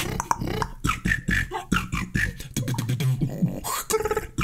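A man beatboxing: a fast run of mouth-made kicks, snares and hi-hat clicks, with a low hummed bass note about three seconds in and a short held vocal tone near the end.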